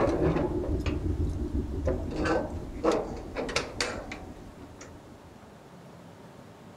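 Railway carriage door handle and latch being turned from outside: a string of metal clicks and clanks over about four seconds.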